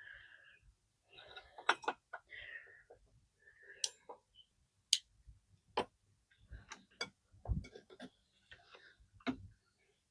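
Irregular sharp clicks and knocks with soft scraping and rustling between them: hand tools and small parts, such as screws, being handled while a scooter's rear wheel and brake are refitted.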